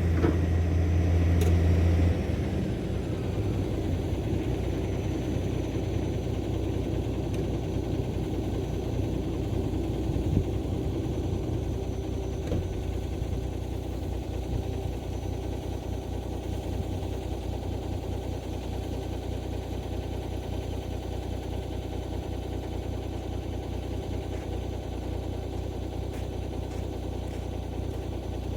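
Heavy diesel engine idling steadily. A louder low hum in the first couple of seconds drops away about two seconds in.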